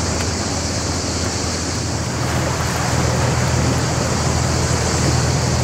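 Harbour waterfront sound: an engine runs steadily with a low hum that grows a little louder about two seconds in, over a constant hiss of wind and lapping water.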